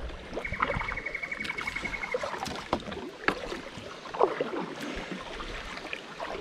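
Kayak paddling on a shallow creek: a continuous trickle of moving water around the hull, with small splashes and knocks from paddle strokes. About half a second in, a thin high trill runs for nearly two seconds.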